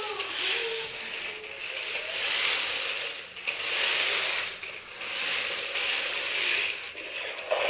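Small electric gear motors of toy RC cars with omniwheels whirring and grinding as they drive, the sound swelling and dropping in surges every second or two as the cars speed up and slow down.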